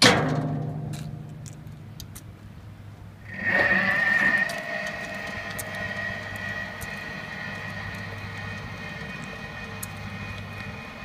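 Steel skip of a Lumag MD-500E electric mini dumper dropping back onto its frame with a loud metallic clang that rings for about a second. About three seconds later its electric drive motor starts up and runs with a steady high whine as the dumper drives off.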